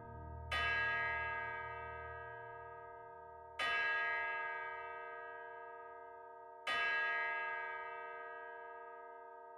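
Bell tolling in the soundtrack music, struck three times about three seconds apart, each stroke ringing on and slowly fading. A low hum underneath fades out within the first two seconds.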